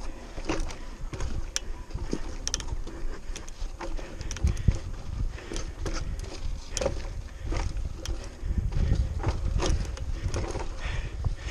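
Mountain bike clattering over a rocky trail: irregular sharp knocks and rattles as the tyres strike rocks and the bike jolts. Under them is a low rumble of wind on the microphone that swells a few times.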